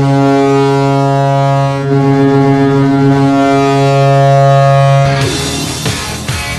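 Toronto Maple Leafs arena goal horn sounding one long, deep, steady note for about five seconds, the signal of a Leafs goal. Then loud rock goal music with drums cuts in.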